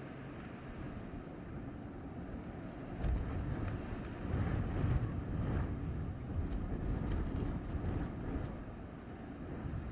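Blizzard wind blowing in gusts: a deep, low rushing noise that swells about three seconds in, is strongest around the middle, and eases toward the end.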